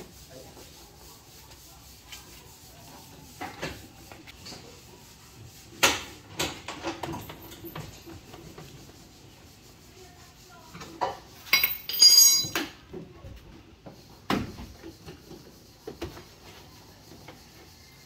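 Steel jack handle and spare-tire winch rod being fitted together and worked through the rear bumper: scattered knocks and scraping, with a brief burst of ringing metallic clinks about two-thirds of the way through.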